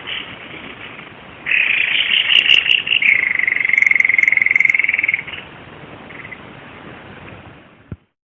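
White-bibbed babbler (Stachyris thoracica) singing. About a second and a half in, a burst of high notes runs straight into a fast, even trill held on one pitch for about two seconds, over a steady background hiss.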